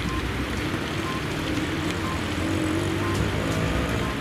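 Steady outdoor rumble with the hum of a running engine, its pitch wavering a little about three seconds in.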